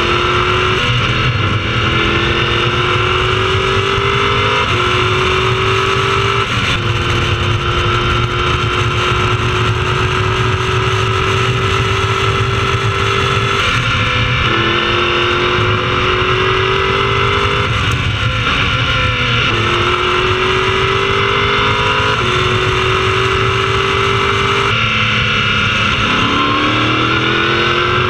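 Prototype race car's engine heard from the cockpit at racing speed: the pitch climbs through the gears with quick upshifts, holds steady for several seconds on a straight, then drops and breaks up through downshifts under braking before climbing again.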